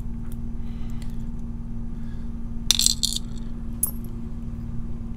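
Small metal lock parts clinking as they are dropped into a pinning tray, with a quick cluster of clinks about three seconds in and one more just after.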